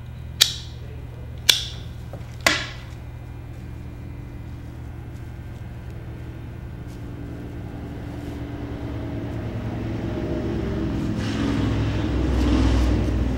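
Hand pruning shears snipping evergreen branches: three sharp snips about a second apart in the first few seconds. From about six seconds in a low rumble builds steadily, loudest near the end.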